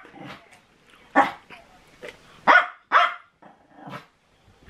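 A dog barking: several short, separate barks spaced irregularly.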